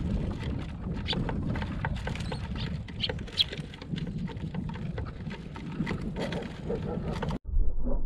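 Sparrows and tits feeding on a plywood feeder tray: a busy patter of small clicks and taps as they peck seeds and hop on the wood, with a few short chirps. Near the end it cuts off abruptly to a louder, muffled deep rumble.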